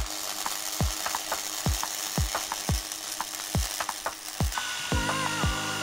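Gasless MIG welder arc crackling and sizzling steadily as it welds square steel tube. It plays under background music with a steady kick-drum beat about twice a second, and a melody comes in after about four and a half seconds.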